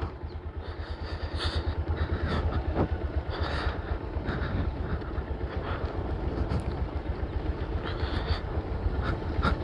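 Motorcycle running at low speed on a dirt road, heard from the rider's seat: a steady low rumble.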